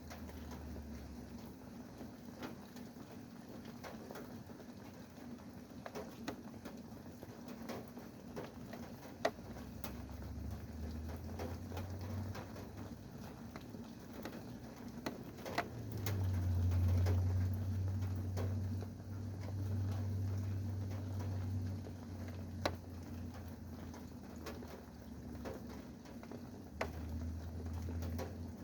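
Rain falling, with individual drops heard as scattered separate ticks over a steady low hum. A low rumble swells for several seconds past the middle.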